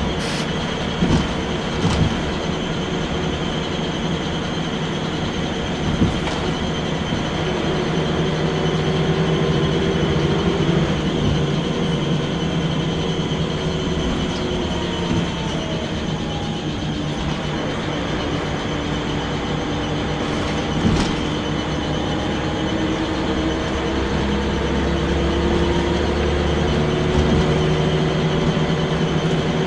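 Inside a Scania L94UB single-deck bus on the move: the rear-mounted diesel engine runs continuously, its pitch rising and falling several times as the bus pulls away and changes gear. A few short knocks and rattles come from the bus body.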